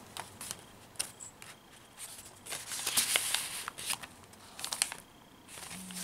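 Light, scattered rustling and crackling of paper as the aged pages and tucked-in paper pieces of a handmade junk journal are handled, smoothed and turned, with short quiet gaps between the rustles.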